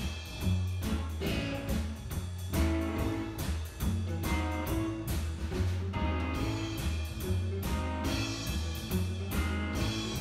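Background music with a steady drum beat and a pulsing bass line.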